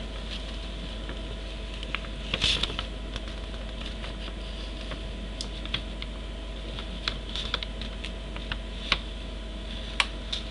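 Handling noise as a sheet of lined paper is held up to the webcam and moved: sparse light clicks, with a brief rustle about two and a half seconds in, over a steady low electrical hum.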